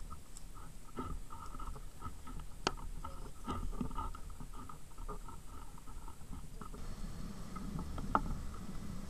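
Wind rumbling on a microphone mounted on a hang glider's frame, with scattered light rustles and a few sharp clicks. The rumble grows stronger near the end, once the glider is airborne.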